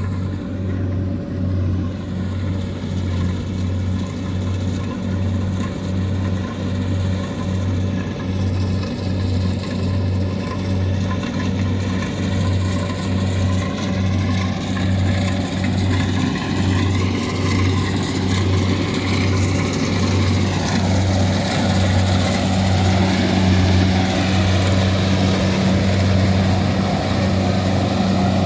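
Engine of a farm machine running steadily at a rice harvest, with a regular low throb slightly more than once a second. From about twenty seconds in, a rougher rushing noise rises on top and the sound grows a little louder.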